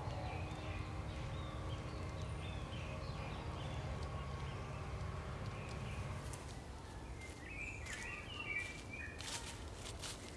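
Outdoor ambience: small birds chirping over a steady low rumble, which eases about two-thirds of the way in. A few footsteps are heard near the end.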